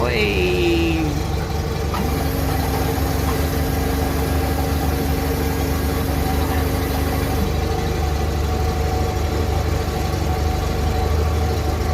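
Steyr-Puch Haflinger's air-cooled flat-twin engine idling steadily. From about two seconds in until about seven and a half, a small electric accessory motor on the vehicle runs alongside it with a steady whine, then stops.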